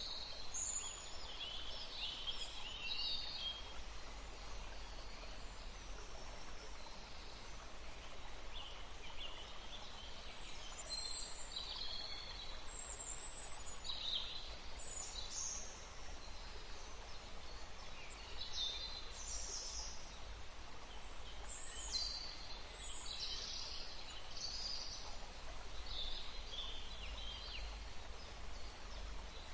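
Songbirds chirping in short, high calls every second or two, over a steady rush of running water.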